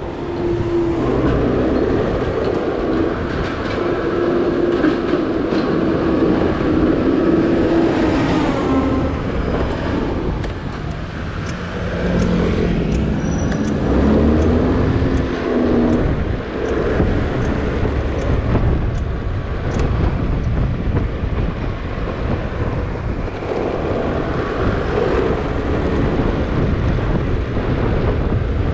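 Motorbike engine running while riding, its pitch rising and falling with the throttle, over a steady rush of road and wind noise.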